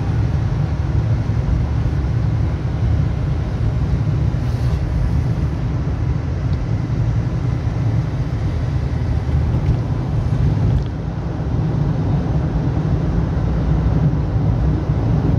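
Steady low engine and road rumble heard from inside a moving vehicle, with a brief dip in level about eleven seconds in.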